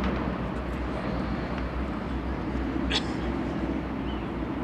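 Steady distant drone of Harvard trainers' Pratt & Whitney R-1340 Wasp radial engines and propellers passing overhead in formation, with a short sharp high sound about three seconds in.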